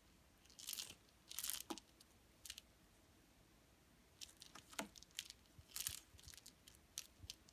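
Cat scratching at a cat tree's scratching post: irregular short scratchy, rasping strokes, the loudest about a second in, around a second and a half, and near six seconds.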